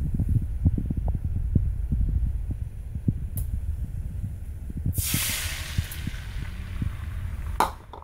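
A low rumble with scattered knocks, then about five seconds in beaten egg hits a hot, oiled modern Lodge cast iron skillet and sizzles loudly, the sizzle fading over the next two seconds.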